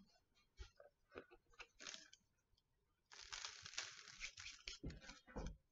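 Faint gritty rustling of sand being sprinkled from the fingertips onto a teacup planter, first as scattered small ticks, then as a denser rustle for about two seconds from about three seconds in, ending with a few soft knocks.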